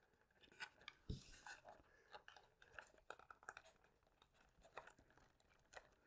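Near silence with faint scattered clicks and rubs of hands pressing a servo into a foam model-aircraft wing and running fingers along it, with a soft thump about a second in.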